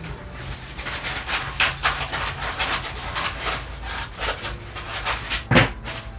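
Scissors snipping through stiff kraft pattern paper, a string of short crisp cuts with paper crackling as it is handled, and one louder thump near the end.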